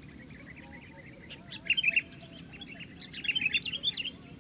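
Sooty-headed bulbul calling in quick, bubbly chirps: a short burst about a second and a half in and a longer run about three seconds in. A steady, pulsing high insect trill runs underneath.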